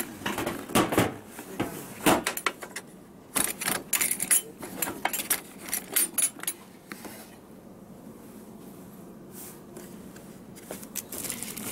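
Hard plastic carrying case of a FEIN ABS18 cordless drill being handled and opened: a string of clicks, knocks and rattles of plastic and metal latches, quieter for a few seconds past the middle, with more knocks near the end.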